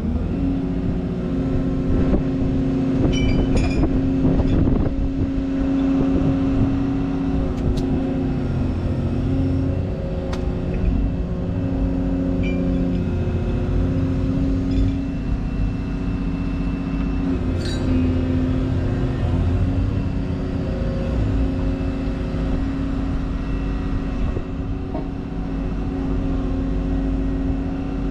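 Excavator's diesel engine running steadily while working its hydraulics, its note shifting slightly a few times, with a few light clicks.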